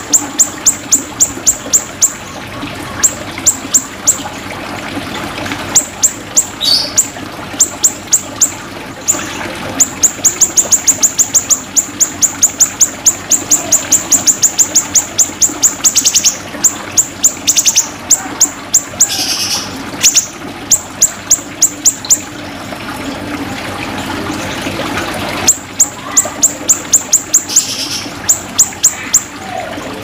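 Siri-siri songbird calling: runs of sharp, high chip notes repeated several times a second, with the longest, fastest run around the middle and a short pause a little before the end, over a steady background hiss.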